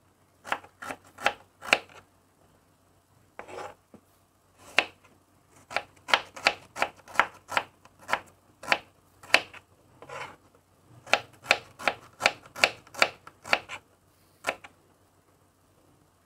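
Kitchen knife slicing shallots on a wooden cutting board: sharp knocks of the blade striking the board, in runs of about two to three a second with a few short pauses.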